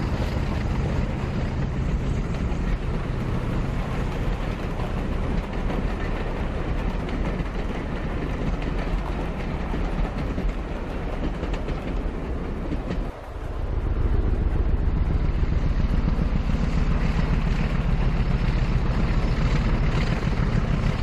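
OO gauge model train running along the layout track, its coaches rolling past with a steady running noise. There is a brief dip about thirteen seconds in, after which it is louder.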